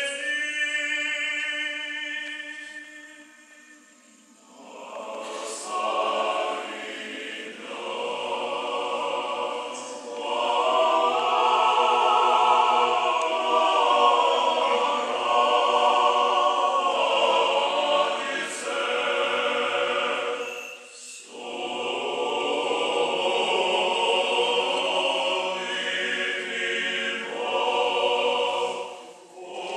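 Orthodox church choir singing liturgical chant a cappella, in long held chords. The phrases break off briefly about 4 seconds in, again around 21 seconds, and just before the end.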